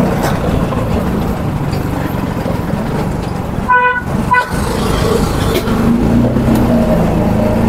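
Busy street traffic with engines running, and a vehicle horn beeping twice about four seconds in: a short beep, then a shorter one right after.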